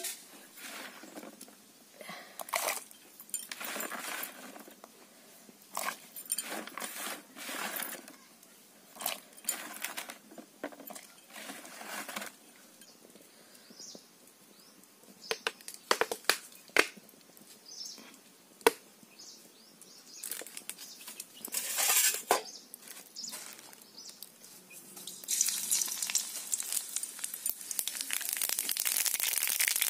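Scattered clinks, knocks and rustles of cooking things being handled. Near the end, a steady sizzling and crackling takes over as mustard seeds fry in hot oil in an iron karahi.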